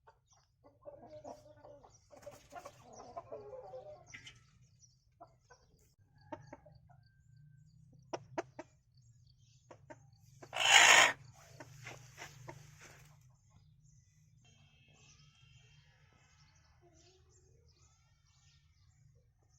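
Aseel chickens clucking and calling on and off. About eleven seconds in there is a loud, sudden burst of noise lasting about a second, and a few sharp clicks come just before it.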